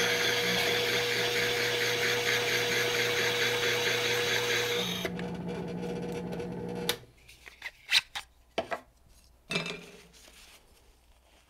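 Powered graver sharpener with a square high-speed-steel graver held in a steel geometry block against its spinning 1200-grit disk: a steady grinding hiss over a motor hum, the final polishing pass on the slimmed side. The grinding ends about seven seconds in, followed by a few light clicks and knocks as the block and graver are handled.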